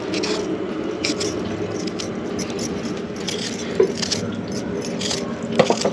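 Vegetable preparation with short scraping strokes and light metal clinks of utensils, and a couple of sharper clinks near the end, over a steady low hum.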